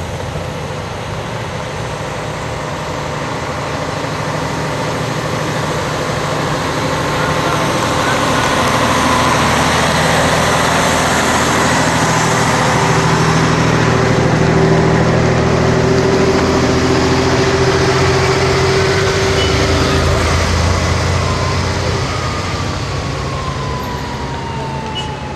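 Vehicle convoy passing close: a large truck's engine with motorcycles and cars, growing louder as they approach and fading as they move off. Near the end a high tone falls steadily in pitch.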